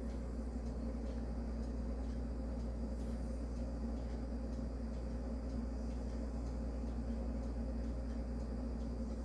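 A steady low hum with no distinct events.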